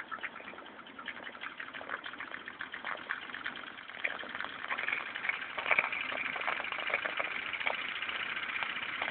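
Small Jensen model steam engine running under steam, a rapid clatter of puffs and clicks that grows louder over the first few seconds and then settles into a steady run.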